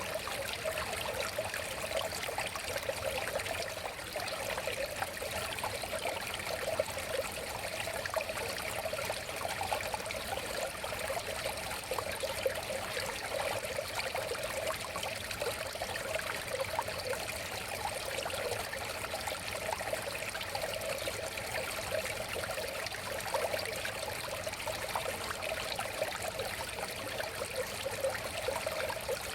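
River water flowing and babbling steadily, a continuous rush with a fine trickling texture.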